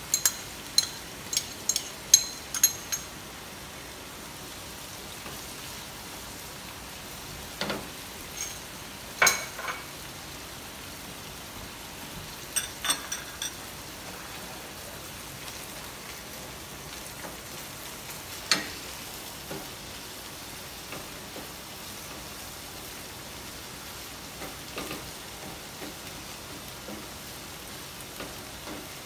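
Minced garlic frying in hot oil in a pan, a steady sizzle, with a metal utensil clinking against the pan several times in the first few seconds and a few single knocks later as it is stirred.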